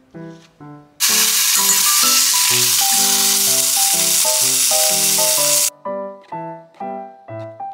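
A piece of pork searing in a pot with green onion gives a loud, steady sizzle that starts abruptly about a second in and stops abruptly near six seconds. Light keyboard music with short, evenly spaced notes plays throughout.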